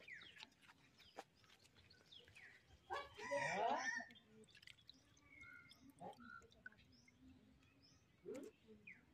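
A rooster crows once, about three seconds in, over small birds chirping here and there.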